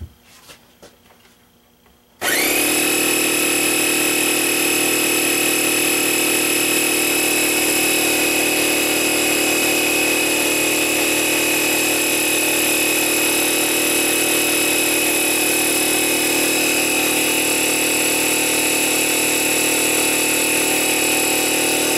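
Large air compressor starting up about two seconds in, quickly reaching speed, then running steadily while it pumps air through a hose into a tire to try to seat the bead of a misshapen tire.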